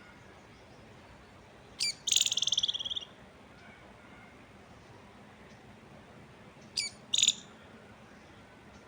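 A songbird calling close by: a sharp high note sliding down, then about a second of buzzy trill about two seconds in, and the same pattern, shorter, again near seven seconds. Fainter distant bird notes sound over a steady soft hiss.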